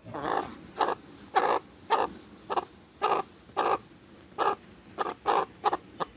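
Chickens clucking: a run of short, separate clucks, about two a second.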